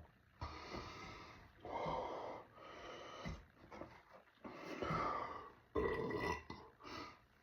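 A man breathing hard and burping in a series of about six short, noisy bursts, the loudest about five seconds in, his stomach full of carbonated Pepsi Zero.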